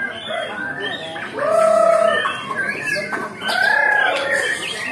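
Many caged songbirds singing and chattering over one another, with two louder, drawn-out calls about one and a half and three and a half seconds in.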